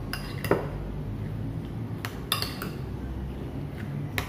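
Metal spoon stirring beaten egg with chopped onion and green chilli in a ceramic bowl, clinking against the bowl a handful of times at irregular intervals.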